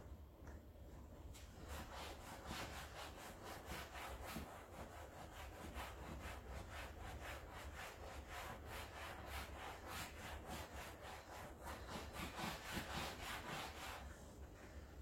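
Rhythmic scraping strokes, about three to four a second, starting a little over a second in and stopping near the end.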